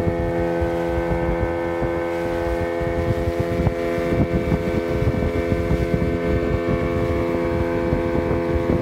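A small wooden fishing boat's engine running steadily at cruising speed, with wind buffeting the microphone and the water rushing past the hull.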